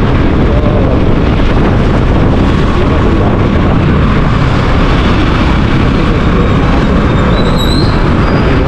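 Motorbike on the move: a loud, steady rumble of engine and road noise mixed with wind on the microphone.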